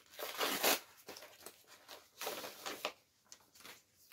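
Packaging being torn open by hand: two rasping rips about two seconds apart, with lighter rustling in between.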